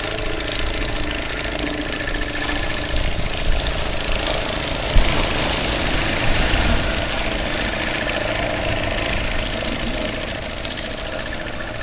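A fishing boat's engine running steadily at idle.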